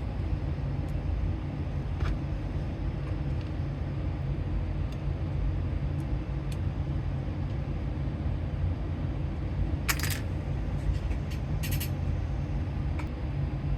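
Small parts of a soldering iron being handled and fitted back together over a steady low background rumble, with a few faint ticks and two short scrapes about ten and twelve seconds in.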